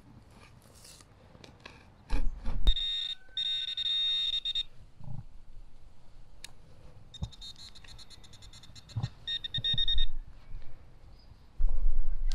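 Metal detector sounding a high, rapidly pulsing beep in two spells of about two and three seconds, signalling metal in the hole. Low thumps come a couple of seconds in and again near the end.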